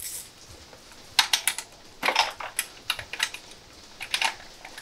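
Socket ratchet clicking in several short bursts as it is worked back and forth, undoing the exhaust silencer's mounting bolt.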